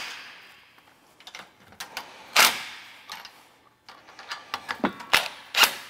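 Trailer tongue jack mounting bolts being tightened with a tool: a few short, loud mechanical bursts with scattered clicks between them.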